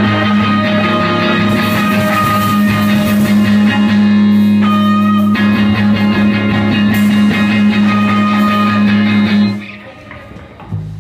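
Small rock band playing live: electric guitars, bass guitar and drums, loud, with cymbals washing in twice over held low notes. The music cuts off sharply near the end.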